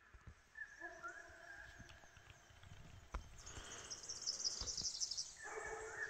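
Sambar deer honking: one call about a second in and another starting near the end, with a high hissing sound in between.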